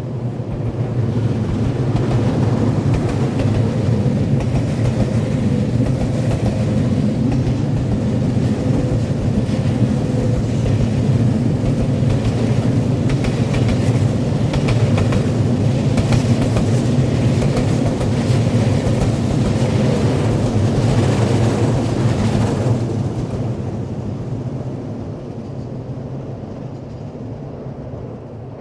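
JR Freight Super Rail Cargo, an M250 series electric freight train, passing close by. It builds up quickly and stays loud, with a run of wheel clacks over the rail joints as its last cars pass, then fades away over the last few seconds.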